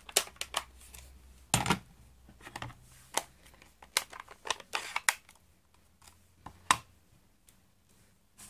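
Scattered light clicks and taps of hard plastic on plastic as a clear photopolymer stamp is handled and tapped onto an ink pad, with a few louder knocks a second or two apart.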